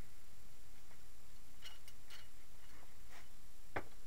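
A few light clicks and taps from objects being handled on a workbench, four of them in the second half, the last one the clearest, over a steady low hum.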